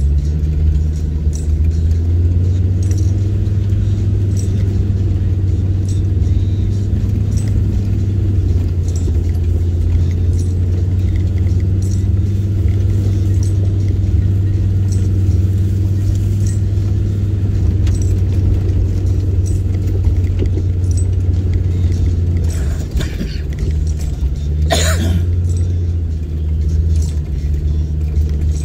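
4x4 engine running at a slow, steady crawl, heard from inside the cab as a low drone, with light clicks and rattles as it rides over the ruts. About 25 seconds in there is one brief sharp swish.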